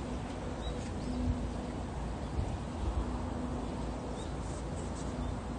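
Outdoor background noise at the riverside: a steady low rumble and hiss, with a few faint, short, high bird chirps.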